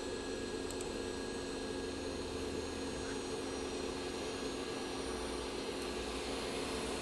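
Hot air rework station blowing a steady stream of air at 40% airflow while its nozzle heats up toward desoldering temperature; the airflow comes on right at the start and then runs evenly.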